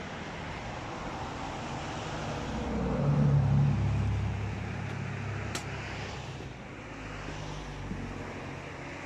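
An engine running steadily, growing louder for a couple of seconds near the middle and then easing back, with a single sharp click about halfway through.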